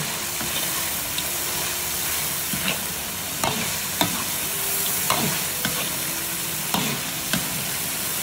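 Chicken pieces sizzling in hot oil in a large wok, with a steady hiss. A metal spatula scrapes and knocks against the wok about once a second as the pieces are stirred.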